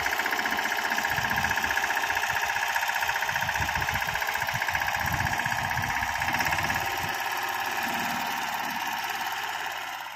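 Mahindra Yuvraj mini tractor's single-cylinder diesel engine running under load with a rapid, even knock as it pulls on a rope to haul a submersible pump out of a borewell. The sound fades out near the end.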